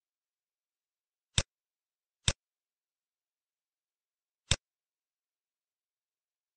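Three sharp computer mouse clicks, two close together and a third about two seconds later.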